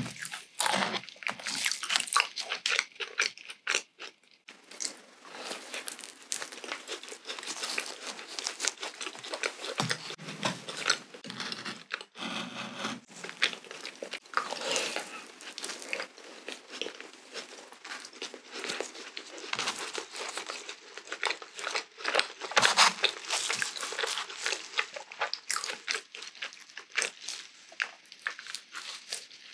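Close-miked chewing and biting of a glazed yeast donut dipped in yogurt: a dense, irregular run of small wet mouth clicks and smacks.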